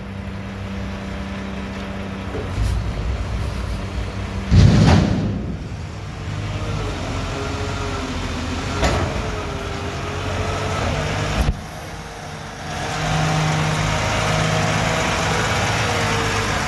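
Mack McNeilus front-loader garbage truck's diesel engine running, with a short loud burst of noise about four and a half seconds in. The engine gets louder again from about thirteen seconds in.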